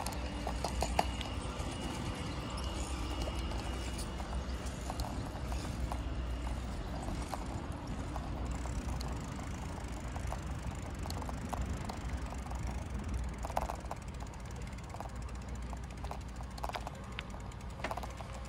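A bicycle being ridden over tarmac and paving: steady tyre and wind rumble, with scattered clicks and rattles from the bike over bumps.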